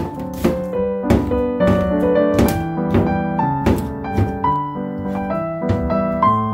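Piano waltz background music, with a kitchen knife chopping on a plastic cutting board underneath it: sharp chops about twice a second.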